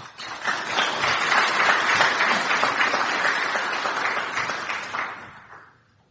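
Audience applauding at the end of a conference talk: a dense patter of clapping that swells in the first second, holds steady, then dies away over the last second or two.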